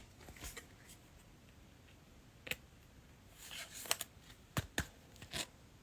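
Faint, scattered clicks and light rustling of trading cards and card packs being handled, with a cluster of taps in the second half.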